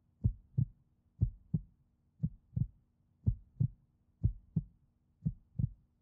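Heartbeat sound effect: pairs of low thumps, lub-dub, about once a second.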